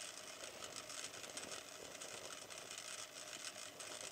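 Industrial sewing machine running steadily with no needle or thread fitted, feeding fabric through the feed dogs.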